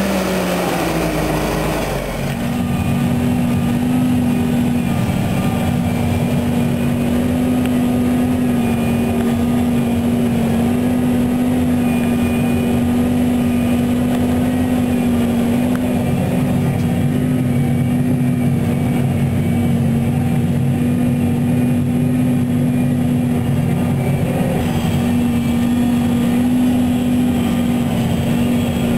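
John Deere 8530 tractor's six-cylinder diesel working under load, pulling a five-shank subsoiler. For the first two seconds it passes close by with its pitch falling; then it is heard from inside the cab, running steadily.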